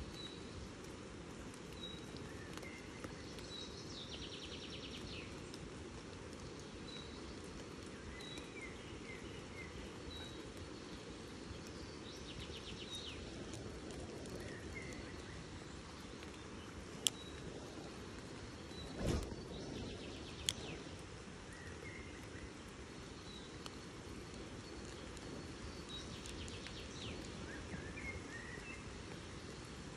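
Birds singing: a short high note repeated about once a second or so, and a brief trill that comes back every seven or eight seconds, over a steady low rush of outdoor background noise. A few sharp clicks and one low thump stand out around the middle.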